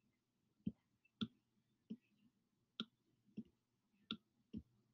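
Faint clicks of a stylus tapping a tablet screen while writing, about seven of them at uneven intervals of roughly half a second.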